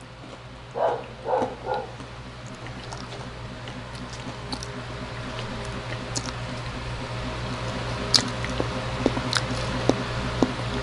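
A dog whining briefly, three short cries about a second in, over a steady low hum, with a few faint clicks later on.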